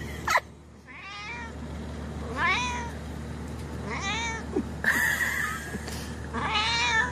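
Calico kitten meowing repeatedly: about five short, high meows, roughly one every second to second and a half.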